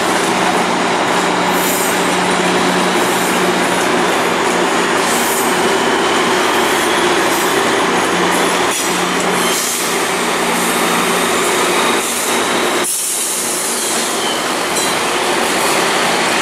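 Passenger train of VIA Rail's Siemens Venture fleet, powered by a Siemens Charger diesel-electric locomotive, moving slowly on the station approach tracks: a steady rumble with a low engine hum that drops away about thirteen seconds in.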